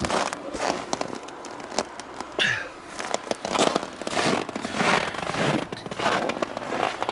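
Footsteps crunching and crackling irregularly on hard-frozen snow in deep cold. A brief falling whine sounds about two and a half seconds in.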